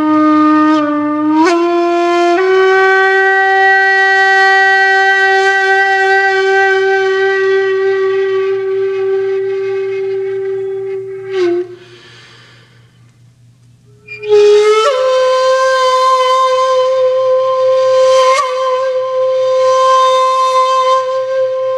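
Background music: a wind instrument holding long, steady notes, rising in small steps at the start, falling quiet for about two seconds past the middle, then returning on a higher held note that wavers near the end.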